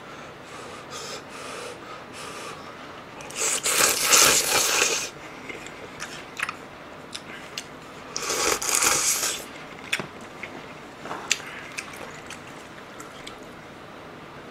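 Two long, loud slurps of Nagasaki champon noodles and broth, about three and a half seconds in and again near eight seconds, with quieter chewing and small clicks between them.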